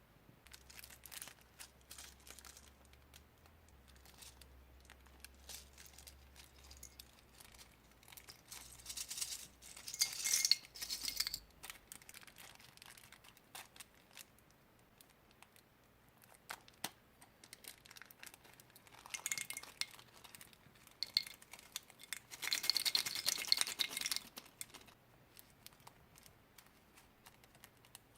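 Hand-made slime being mixed and handled: scattered light clicks and clinks of containers and utensils, with two louder stretches of hissy rustling, about nine seconds in and again around twenty-three seconds.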